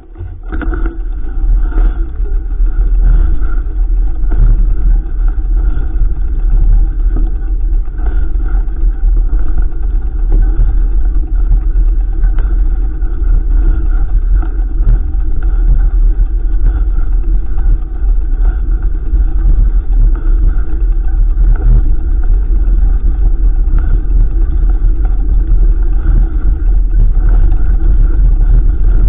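Loud, steady rushing rumble of wind and riding noise on a mountain bike's camera microphone, coming up suddenly at the start.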